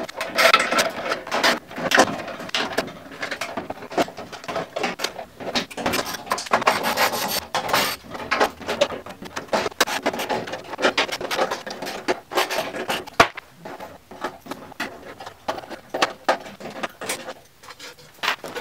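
Wiring and cable bundles being pulled and worked loose from inside a metal pay-station cabinet: irregular scraping and rubbing with many sharp clicks of plastic and metal.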